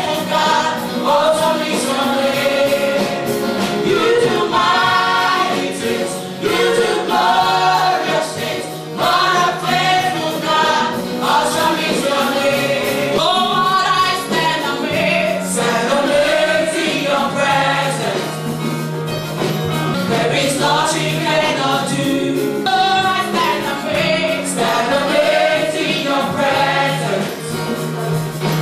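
Gospel worship singing by a group of voices over a steady sustained instrumental backing.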